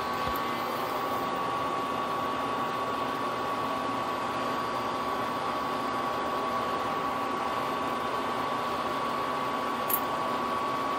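Steady fan-like hiss with a faint, even high hum. Near the end comes a small metallic click as a snap ring is worked onto the mini lathe spindle with snap ring pliers.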